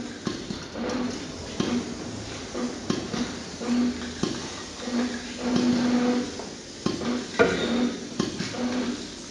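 Aerosol spray paint cans being handled: an irregular metallic clatter of clicks and knocks, like the mixing balls rattling inside the cans and cans knocking against each other, with one louder clank about seven seconds in.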